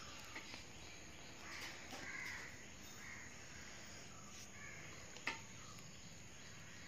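Faint short animal calls, a few of them in the first half, then one sharp click about five seconds in.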